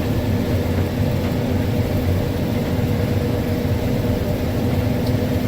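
Case IH 6140 combine harvester running steadily at work: a constant engine and machinery drone with a few held low hums.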